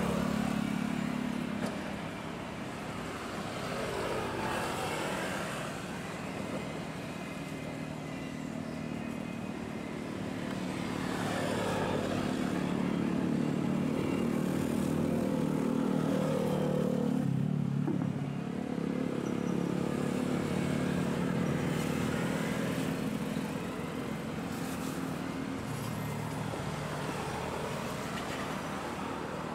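Small engines running at the harbourside, revving up and down several times, their pitch dipping and climbing, over a steady low hum.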